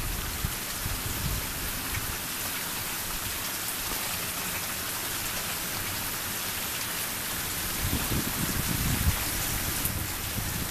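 Steady rain falling, an even hiss of drops, with some low rumbling near the end.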